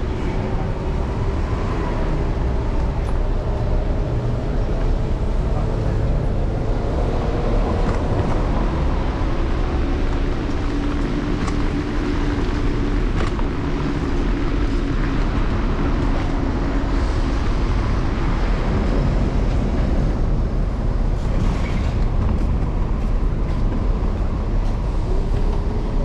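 Steady low rumble of wind and road noise on a handlebar-mounted camera as an electric scooter rides through city traffic, with a faint whine that rises slowly in pitch over the first several seconds.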